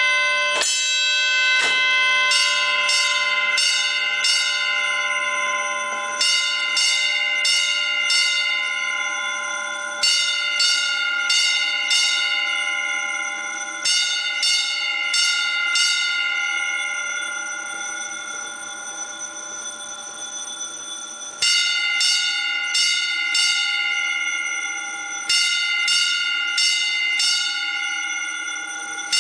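Electric fire alarm bell of a school system installed in 1957, its metal gong ringing in bursts of quick strokes every few seconds. Each burst opens with a louder stroke, and the bell's tone lingers and slowly dies away between bursts, most noticeably over a pause of a few seconds in the middle.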